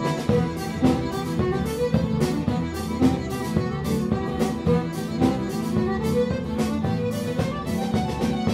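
Celtic folk band playing a lively traditional tune: fiddle and accordion on the melody over acoustic guitar, with drums keeping a steady beat.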